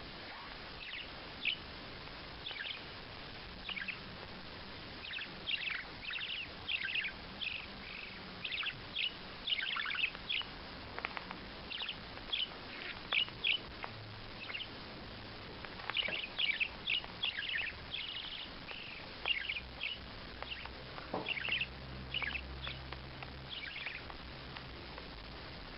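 A bird chirping over and over: short, sharp, high calls in quick, irregular runs.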